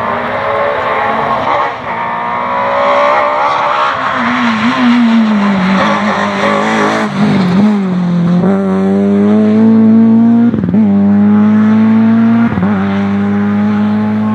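Rally car engine at high revs. It eases off and the pitch drops for a couple of seconds, then it accelerates hard through the gears, the pitch climbing and dipping briefly at each upshift, about every two seconds.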